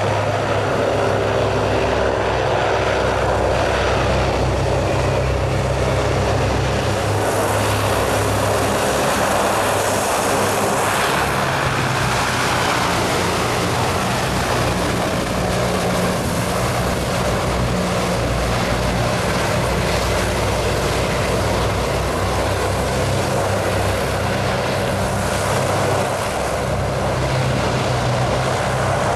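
Passenger hovercraft running on its air cushion, a steady drone of its engines and twin ducted propellers over a broad rush of air and spray. The rush swells about seven to twelve seconds in as the craft sweeps through a curve.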